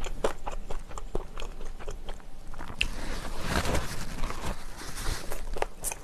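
Close-up chewing of a crispy kimchi pancake (kimchijeon): crunching bites with many small wet mouth clicks.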